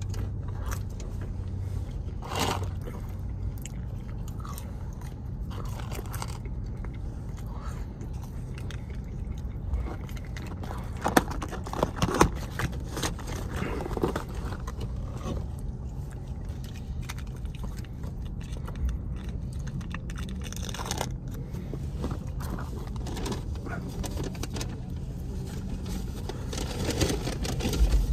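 A person chewing and biting crunchy breaded chicken fries, in scattered crunches with a few louder ones about halfway through, over a steady low hum.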